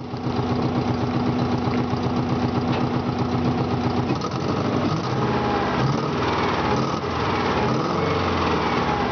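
Subaru EJ20G turbocharged flat-four idling roughly, heard close to a leaking exhaust. The misfire comes from a holed piston leaving one cylinder with no compression. The idle note turns uneven about four seconds in.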